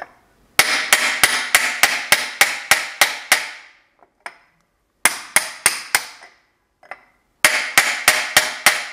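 Hammer striking a steel drift to tap a link pin out of a VW Beetle's front spindle, metal on metal. The blows come in three quick runs of about four a second with short pauses between, each blow ringing. The pin is going out easily.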